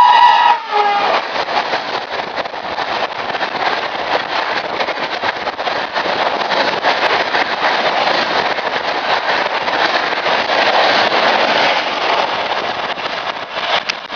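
A WAP-5 electric locomotive's horn cuts off within the first second. Then the coaches of a Shatabdi Express rush past at speed: a loud, steady roar of wheels on rail with many rapid clicks, easing slightly near the end.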